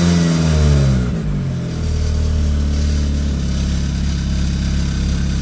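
2003 Mercedes C230 engine falling back from a brief rev to idle in the first second or two, then idling steadily. This is the idle the owner calls rough.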